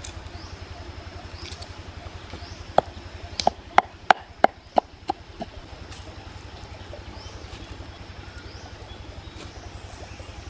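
Wooden pestle striking in a wooden mortar of chilies and garlic: about eight sharp knocks in quick succession a few seconds in, over a steady low hum.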